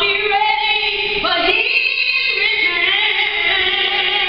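A woman singing a gospel song, holding long notes and changing pitch a few times.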